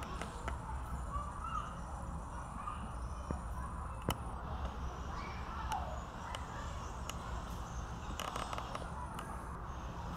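Outdoor ambience: a steady low rumble with faint, distant wavering calls and a sharp click about four seconds in.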